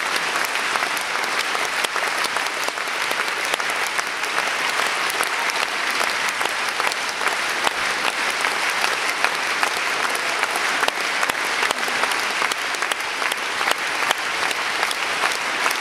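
A large theatre audience applauding, dense and steady.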